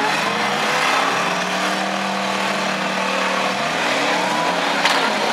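Several demolition derby cars' engines revving up and down together in a dense, loud mix, with a sharp bang near the end.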